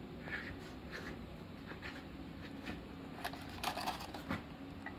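Faint handling sounds of a sanding drum kit and its packaging: scattered light clicks and rustles, busiest about three to four seconds in.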